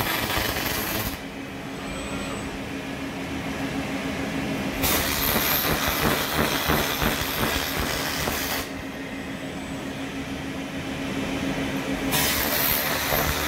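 Laser cleaning head ablating residue from a tire mold segment: a loud hiss while the beam fires, stopping about a second in, returning for about four seconds midway, and starting again near the end. A steady low hum runs underneath.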